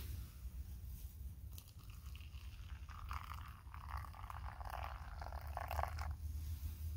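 Water poured from a metal cup into a collapsible silicone bowl: a steady trickling pour that starts about two seconds in and stops about a second before the end.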